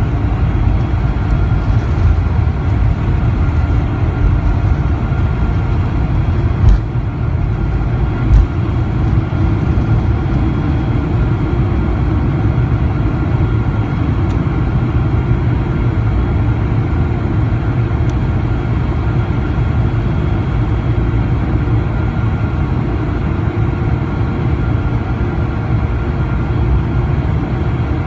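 Boeing 747-400's four engines at takeoff thrust, heard from a cabin seat over the wing: a loud, steady rumble with a thin whine over it. Two short thumps stand out about seven and eight seconds in.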